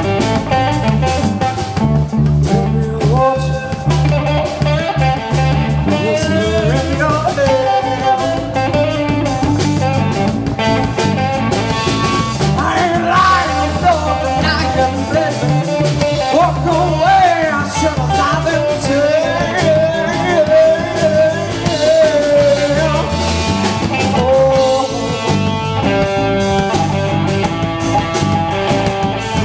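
Live blues-rock band playing, with steady bass notes under it; through the middle a lead part of bending, wavering notes rides on top.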